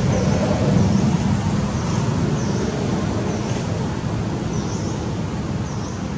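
Steady low rumble of background noise, with faint high chirps repeating every second or so.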